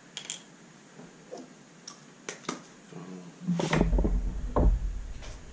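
Scattered clicks and knocks of metal parts and tools being handled on a workbench, then a louder clatter with a low thud about three and a half seconds in as the hydraulic pump housing in the bench vise is handled.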